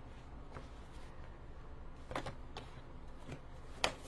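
Large sheets of paper being handled and lifted off a craft table: faint rustling, a couple of short scrapes about two seconds in, and a sharp tap near the end.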